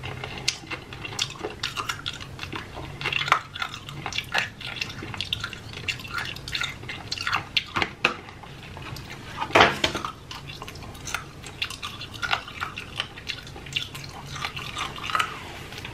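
Close-miked wet mouth sounds of someone sucking and smacking on a piece of hard candy cane: irregular clicks and smacks throughout, with a louder cluster about ten seconds in.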